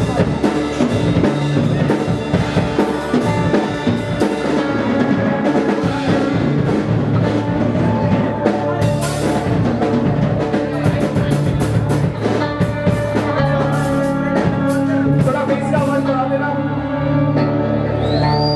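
Rock band playing live: drum kit with frequent cymbal and drum hits under sustained guitar.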